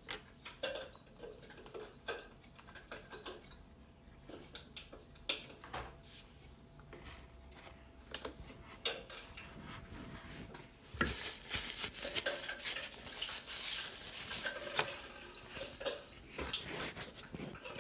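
A kitchen utensil scraping and clinking against a dish: scattered clicks, turning into busier, steadier scraping about two-thirds of the way through.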